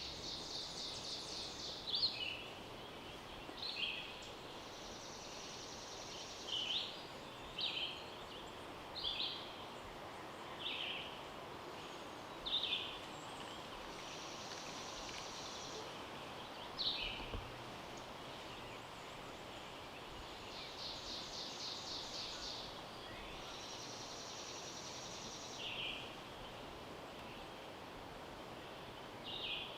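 Wild songbirds calling: short high chirps every second or two, with a few longer trilled songs, over a faint steady background hiss.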